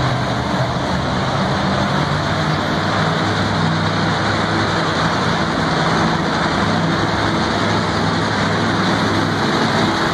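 A monster truck's engine running loudly at a fairly steady pitch, without big revs or impacts.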